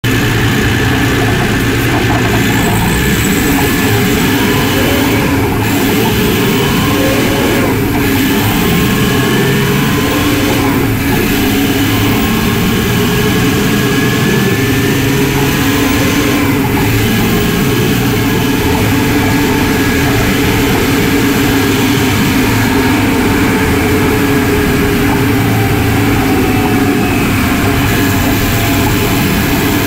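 Detroit Diesel Series 60 12.7-litre engine and its variable-vane turbocharger running while the truck is driven, heard close up in the engine bay: a loud, steady mechanical din with a faint whistle that wanders up and down in pitch.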